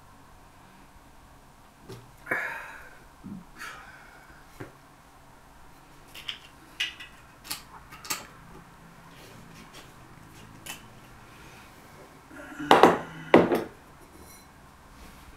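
Glass bottles being handled: scattered clinks and small knocks, with two louder clatters close together about thirteen seconds in.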